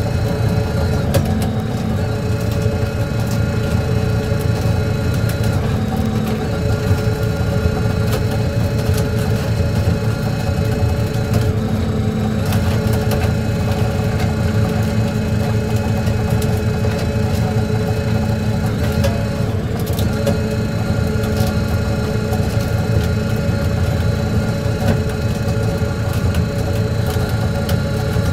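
A fishing trawler's diesel engine running steadily under way, a constant drone with a steady hum of tones over a low rumble.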